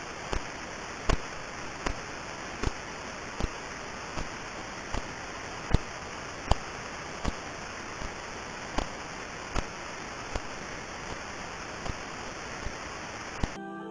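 Radio pulsar signal from a radio telescope played as sound: a steady hiss with sharp regular clicks, about one every three-quarters of a second, some louder than others. Each click is one sweep of the spinning neutron star's radio beam, heard as a continuous knocking.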